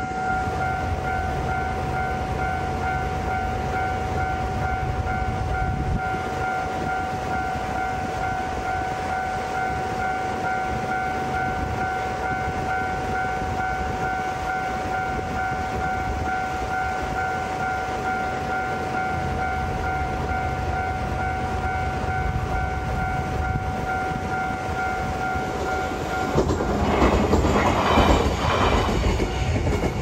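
Japanese level-crossing alarm ringing its fast repeating electronic 'kan-kan' over the low rumble of a train. In the last few seconds the alarm is drowned by a louder rush of train noise as the train passes close.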